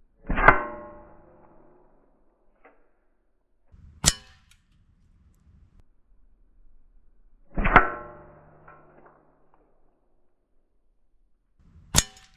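BB gun firing twice, each shot a loud metallic clang that rings on for about a second. A single sharp click comes a few seconds after each shot.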